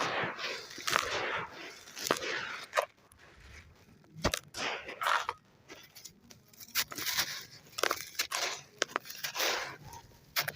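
Lumps of hand-made gritty red sand crumbling in water: a string of short gritty crunches and crackles, with a sharp crack about four seconds in.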